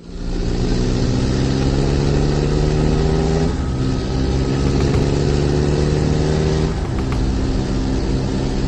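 Truck engine sound effect of a radio-controlled toy dump truck: a steady low diesel-like hum that shifts slightly in pitch twice.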